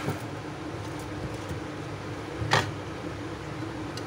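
Black electrical tape being peeled off and handled, with one short crackle about two and a half seconds in, over a steady low hum.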